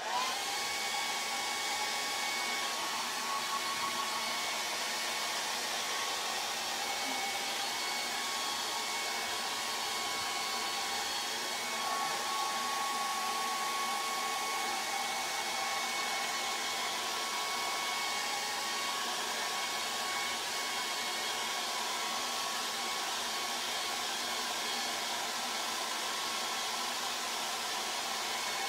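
Handheld hair dryer running steadily, blowing air to dry a wet acrylic wash on paper: an even rush of air with a thin, steady motor whine over it.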